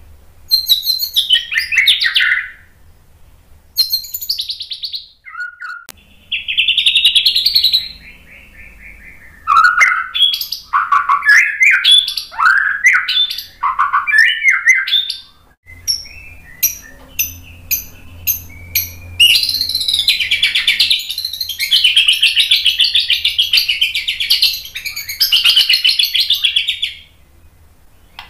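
White-rumped shama (murai batu) singing a varied song: loud whistled phrases that slide down in pitch, a run of sharp clicks, then a long rapid chattering trill through most of the last third.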